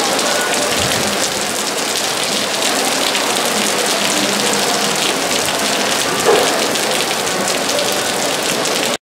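Heavy tropical rain shower pouring down and splashing on wet stone paving, a steady dense hiss of countless drop impacts.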